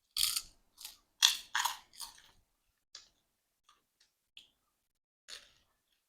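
Close-miked eating sounds while chewing chicken biryani: a quick run of five chews in the first two and a half seconds, then a few faint mouth clicks and one more chew a little past five seconds.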